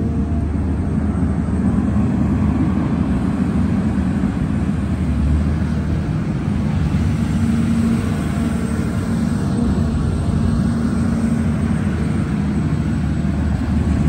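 Hidromek 310 tracked excavator's diesel engine running steadily under working load as the machine digs and moves through wet soil.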